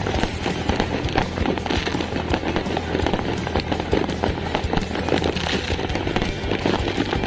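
New Year fireworks and firecrackers going off in a dense, irregular crackle of many quick pops.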